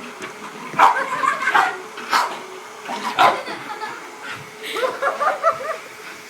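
English bull terrier yipping and whining in short, excited bursts while playing, in a few separate bouts.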